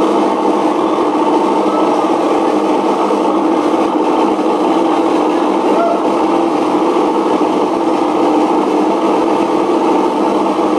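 Steady, dense electronic noise-music drone: many held tones layered together at a constant loud level, without beats or breaks.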